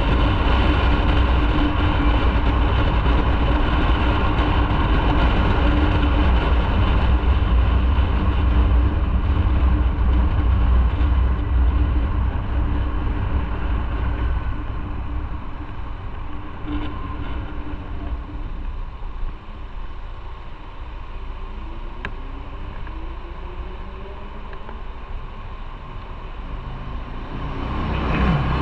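Motorcycle on the move, its engine and wind noise steady for about half the clip, then quieter as it eases off, and building again near the end.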